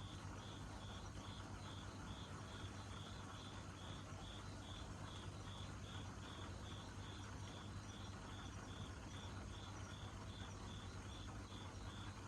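An insect chirping in an even rhythm, about two high chirps a second, over a low steady hum.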